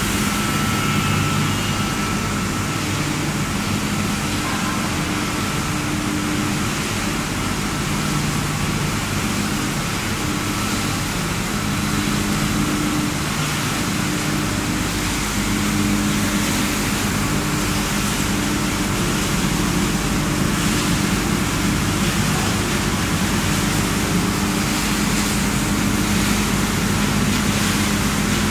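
Wood pellet production line running: pellet mills and belt conveyors making a loud, continuous mechanical din with a low hum.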